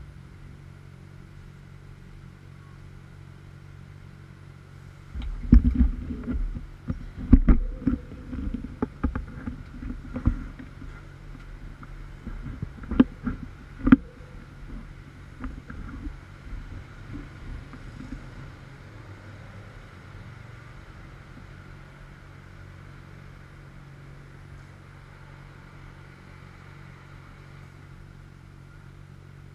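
Urban road traffic heard from a stationary bicycle at a junction: a steady hum of engines. From about five seconds in, a heavier vehicle moves off with low rumbling and several rattling knocks, then it fades back to the steady hum after about eighteen seconds.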